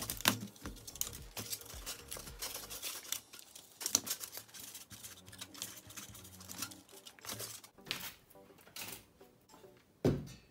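Irregular clicks, taps and rustling scrapes from a plastic amplifier front panel being handled and turned over on a work mat. About ten seconds in comes a heavier thump as the sheet-metal chassis is handled.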